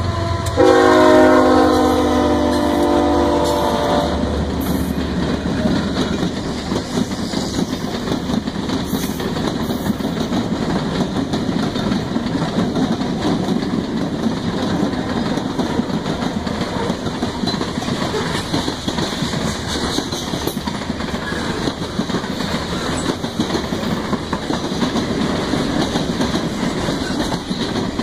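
Norfolk Southern freight locomotive sounding one loud horn blast of about three and a half seconds, starting about half a second in, over the low rumble of its diesel engine as it passes. After that come the steady rush and clatter of the passing train's wheels on the rail.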